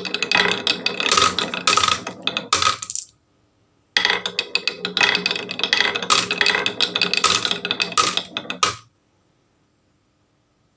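Marbles clattering and rattling down a marble run in two rapid runs of clicks, each about three to five seconds long, with a second of silence between them; it falls silent about nine seconds in.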